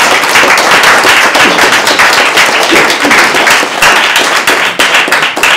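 Audience applause: many people clapping at once, dense and steady, thinning out at the very end.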